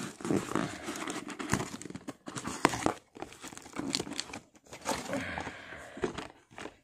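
Corrugated cardboard box being opened by hand: irregular rustling and scraping of the flaps, with sharp crackles and knocks as the box inside is lifted out.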